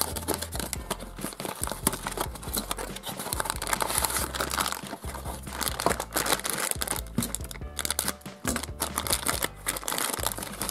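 Thin plastic packet crinkling and rustling as it is squeezed and pulled open, after a small cardboard box is opened, over background music.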